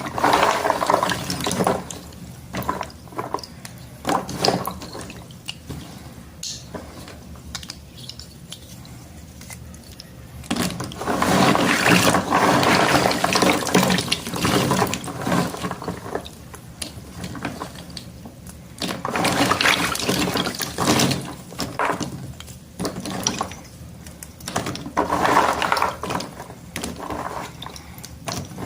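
Water-soaked school chalk sticks being broken and crumbled in water, giving wet crackling and sizzling with sharp snaps. It comes in loud spells near the start, through the middle and twice more later on, with quieter stretches between.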